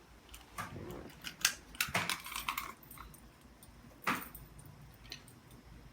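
Keys jangling and sharp metal clicks and clacks, the loudest about a second and a half in and another near four seconds: manual fire alarm pull stations being reset with their keys.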